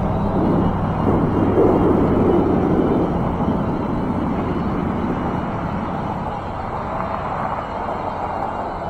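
Wind rushing on the microphone and rolling noise from an e-bike being ridden along a paved path, easing off slightly near the end.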